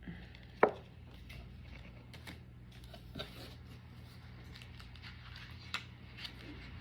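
A sharp tap about half a second in, followed by a few fainter scattered clicks and taps, over a low steady hum.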